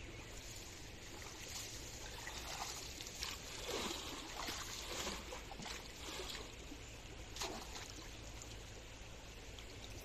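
Shallow river water trickling, with irregular light splashes and swishes from a person wading through it, bunched around the middle and once more later on.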